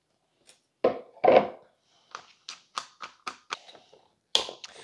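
Two hard knocks as the blender jar and funnel are set down on the counter, then a quick run of light clicks and a sharp snap as a swing-top glass bottle's wire-bail stopper is worked shut.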